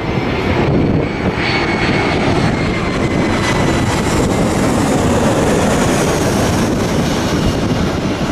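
Jet airliner engines running, a steady rumble with a thin high whine over it.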